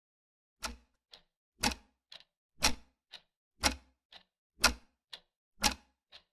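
Clock ticking: an even tick-tock, one loud tick each second with a fainter tock halfway between.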